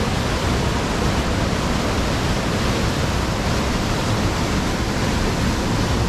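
A strong waterfall pouring: a steady, even rush of falling water with no breaks.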